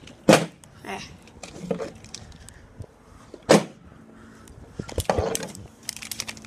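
A partly filled plastic Gatorade bottle being flipped onto a plastic table, knocking down sharply twice, about a third of a second in and about three and a half seconds in, with a smaller knock in between and a quick run of lighter knocks and handling clatter near the end.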